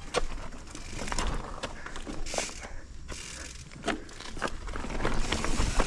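Gear moving down a steep trail: scattered crunching, scraping and clicking, with wind rumble on the microphone building near the end as speed picks up.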